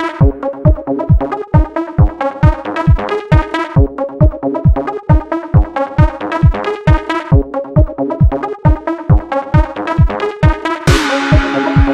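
Electronic dance music with a steady four-on-the-floor kick drum and synth chords; a rising noise sweep builds near the end.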